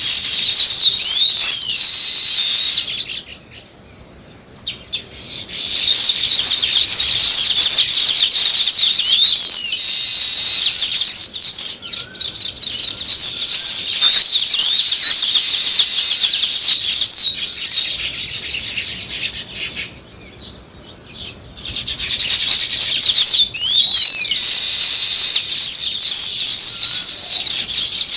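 A flock of weaver birds chattering in a dense, continuous chorus of high chirps and quick sweeping calls. The chorus drops away briefly twice, about 3 seconds in and again about 20 seconds in.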